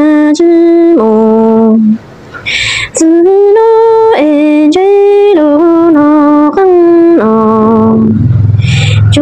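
A woman's solo voice singing a Hmong sung-poetry lament for orphans (lug txaj ntsuag), holding long notes that step and slide between a few pitches. She pauses for breath about two seconds in and again near the end.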